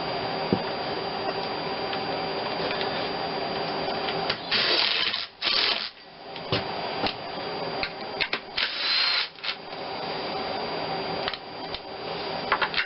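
New bolts being run into a Geo Metro G10 engine with a tool: several short bursts of rapid mechanical clicking over a steady background hum.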